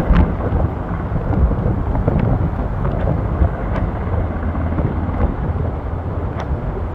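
Steady low rumble of a Surion firefighting helicopter, mixed with wind buffeting the microphone, with a few faint clicks.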